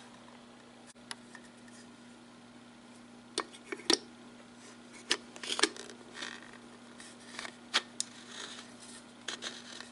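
A plastic photocell eye handled and fitted onto a metal yard-light housing: scattered sharp clicks and brief scrapes of plastic on metal, over a faint steady hum.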